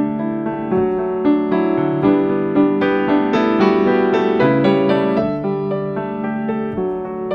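Solo piano music: a steady stream of notes with sustained chords underneath.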